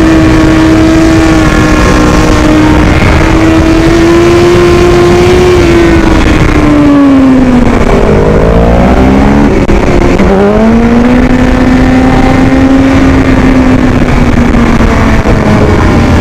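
BMW S1000RR sport bike's inline-four engine running hard at high revs on the move, its note held steady at first. About seven seconds in it drops in pitch, with a few quick overlapping rises and falls of engine note, then climbs back and holds. Heavy wind noise on the microphone runs under it.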